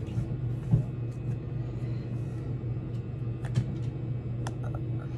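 Fluffy slime being squeezed and stretched by hand, giving a few short sticky clicks and pops, over a steady low hum.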